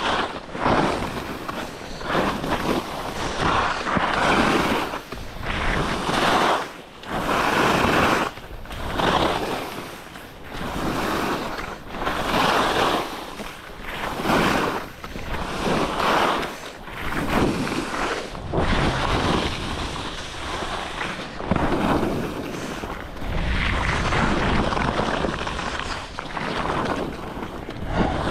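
Alpine skis scraping and hissing over chopped-up piste snow through a series of turns, swelling and fading every second or so, with wind rushing on the microphone.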